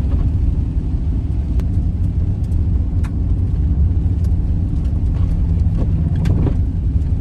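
Van driving slowly along a dirt road, heard from inside the cab: a steady low rumble of engine and tyres, with a few sharp clicks from stones or rattles.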